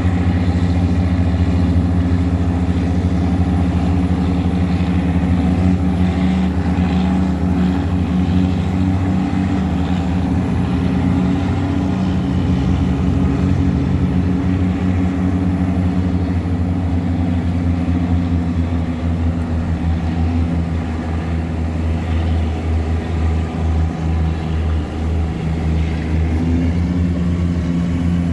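Tugboat's diesel engine running steadily under heavy load while towing a cargo barge against a strong river current, with a deep, even engine note. The level sags and wavers a little in the last third.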